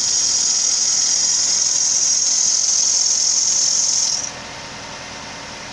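Nissan Primera P12's accessory drive belt squealing loudly and steadily over the running engine, then cutting out suddenly about four seconds in as solvent poured onto the pulley reaches the belt. The belt slips because it is wet with spilled coolant; once the squeal stops, only the engine idling is left.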